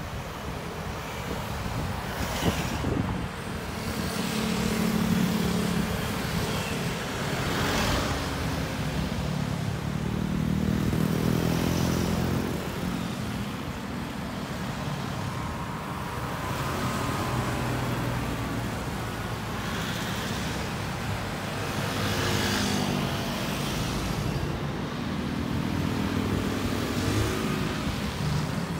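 Road traffic: cars and a van driving past one after another, engine hum and tyre noise swelling and fading several times.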